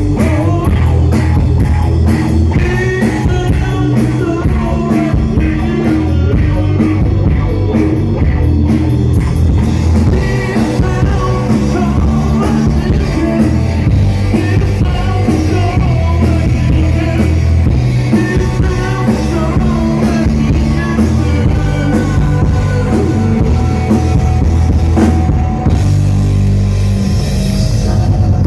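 Rock song played loud, a singer's voice over a drum kit and guitar.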